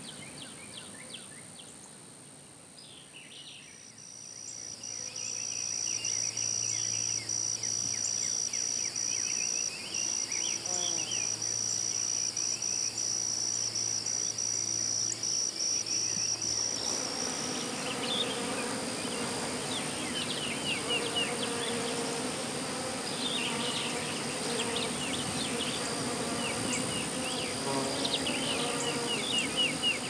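Insects buzzing with a steady high whine, with short bird chirps scattered through. About halfway through, the whine stops and a fuller outdoor chorus of insects and chirping birds takes over.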